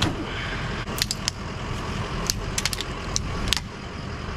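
Scattered sharp metallic clicks and clinks as a pool pole is handled and worked on, over a steady low background rumble.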